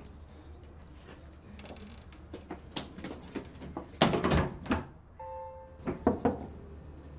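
Scattered taps and a loud thud about four seconds in, then a few quick knocks of a knuckle on a wooden plank door.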